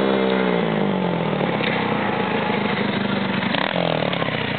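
Small single-cylinder minibike engine running close by. Its pitch falls in the first second as it eases off and passes, then it runs at lower revs, with another short drop in pitch near the end.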